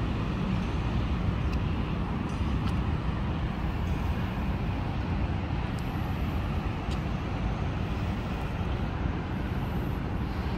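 Steady city street noise: a constant rumble of road traffic passing.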